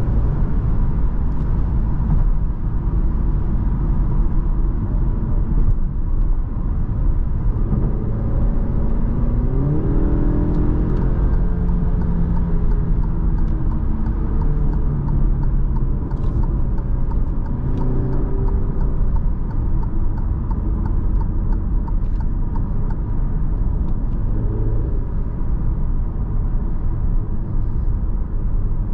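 Inside the cabin of a 2022 Alfa Romeo Giulia Veloce with its 2.0-litre turbocharged four-cylinder engine, driving at motorway speed: a steady deep rumble of engine and road noise. The engine note rises about a third of the way in and again a little past halfway as the car pulls.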